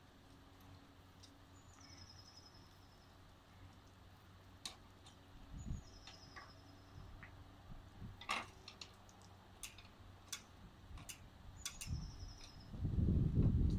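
Scattered clicks and knocks from the Magix New Live electric wheelchair being handled as its backrest is folded down, over faint outdoor background with short bird trills. Near the end a louder low rumble begins as the chair starts to move toward the ramps.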